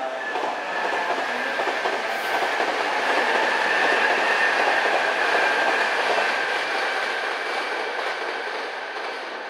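Nankai Koya Line electric train running past on the tracks, its wheels clattering over the rails with a steady high whine. The sound swells to a peak about halfway through, then fades.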